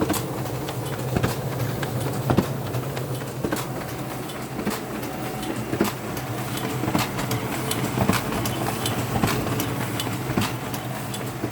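Ricoh SP 5300DN laser printer running with a steady hum and a sharp click repeating evenly about once a second: the abnormal clicking noise the printer has developed.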